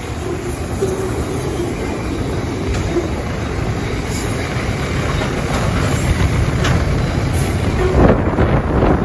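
Loaded freight wagons of a long goods train rolling past, a steady rumble of steel wheels on the rails with occasional clacks late on.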